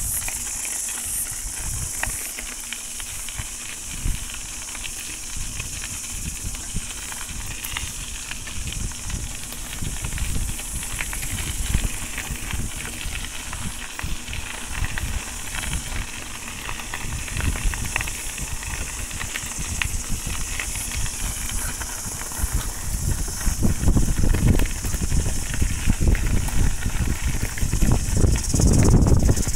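Bicycle riding on a gravel trail: tyres crunching over loose gravel with irregular knocks, and wind buffeting the microphone in low rumbles that get heavier in the last few seconds, all under a steady high hiss.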